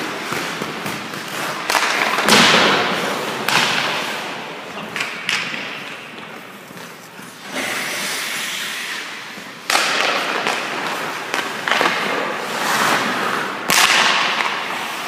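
Ice hockey sticks, pucks and skates in an echoing rink: sharp cracks of shots, the loudest about two seconds in, near ten seconds and near fourteen seconds, each ringing on, with skate blades scraping the ice between them.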